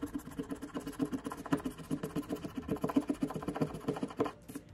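Scratch-off lottery ticket being scratched with a scraper in quick, even back-and-forth strokes, about eight a second, stopping shortly before the end.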